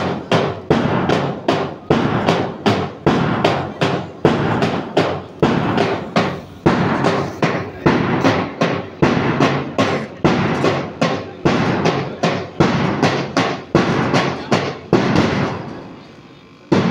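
A drum beaten in a steady rhythm, about two strokes a second, keeping time for a group PT exercise drill. The beats stop about a second before the end, and one last stroke follows.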